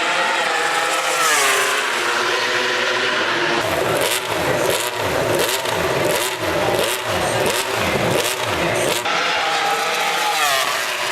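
MotoGP racing motorcycles at full song, their engines rising and falling in pitch. From about four seconds in, bikes pass one after another, about eight in five seconds, each dropping in pitch as it goes by. Near the end another climbs through the revs.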